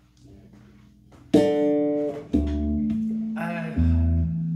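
Guitar being played: a bright plucked chord rings out about a second in, then held notes follow with a deep bass note under them twice.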